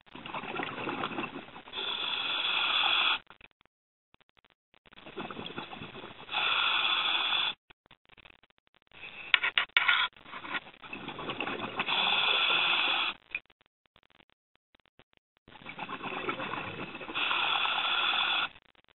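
Scuba diver breathing through a regulator: four breath cycles, each a few seconds of hissing and bubbling that ends in a steadier hiss and cuts off sharply, with short silent pauses between.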